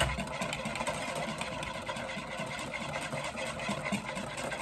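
Wire whisk beating fast and steadily against the side of a mixing bowl, a continuous rapid clatter, as oil is whisked in to emulsify a Caesar dressing.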